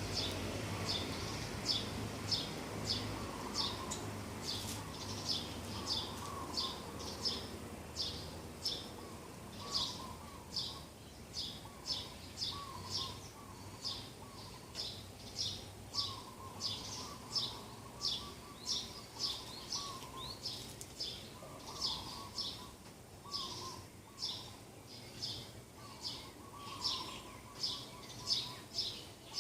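Birds singing in the morning: one bird repeats a short, high chirp about twice a second throughout, with lower warbling notes from other birds in between. A low hum underneath fades out over the first ten seconds or so.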